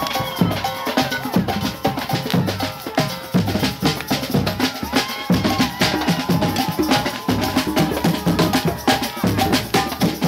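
Music with a steady drumbeat, bass drum and snare struck in a quick regular rhythm, with a melody line over it.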